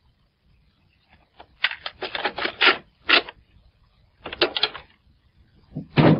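Plastic stereo buttons being pressed: short clicks and clacks in quick clusters, then a louder knock near the end.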